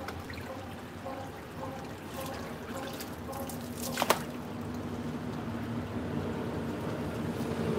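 Water running from a garden hose, splashing onto wet concrete and over a dog's legs during a bath. A single sharp click about four seconds in.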